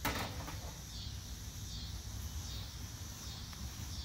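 Insects chirping in a faint, evenly pulsing high band over a steady low rumble, with a short knock at the very start.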